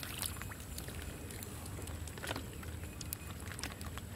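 Faint squelching and small water sounds of bare feet and hands moving in a shallow muddy pond, scattered light clicks over a low steady hum.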